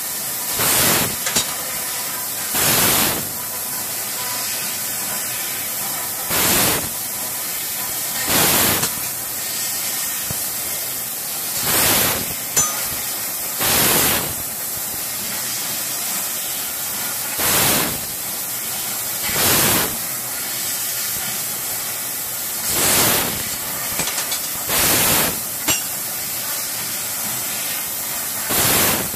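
Laser tube cutting machine cutting holes in a long hollow metal tube: a steady hiss, with a louder rush of gas about every two to four seconds as each cut is made.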